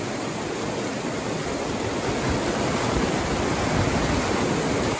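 Heavy rain pouring down in a storm: a dense, steady hiss that grows a little louder toward the end.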